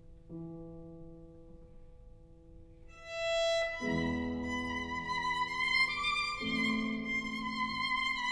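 Classical music with solo violin: soft held low notes at first, then the violin comes in about three seconds in with a sustained high melody, joined by fuller accompanying chords a second later.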